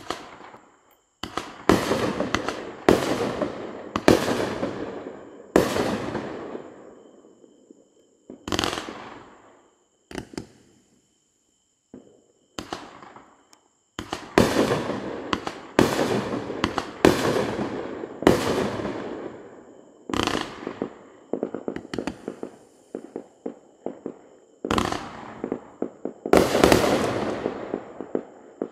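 A 22-shot consumer firework cake, Winda's Neon Orange, firing its shots one after another. Each shot is a sharp bang that fades out over about a second. They come in quick runs, with a lull of a few seconds partway through.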